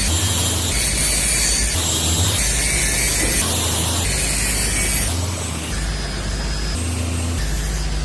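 Heavy machinery working with a steady mechanical clatter that repeats in an even cycle roughly every one and a half seconds, over a constant low hum.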